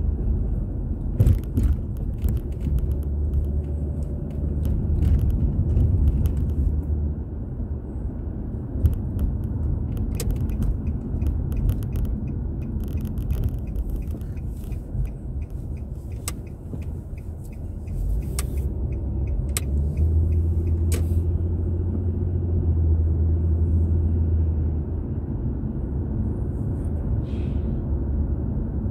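A car's engine and road noise as a low, steady rumble, picked up by a dashboard drive recorder inside the cabin. Scattered sharp clicks and knocks come through it and stop after about twenty seconds.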